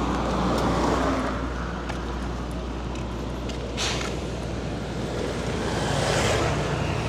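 City street traffic: vehicle engines running and passing, over a steady low hum, with a short sharp hiss about four seconds in and a vehicle passing louder near the end.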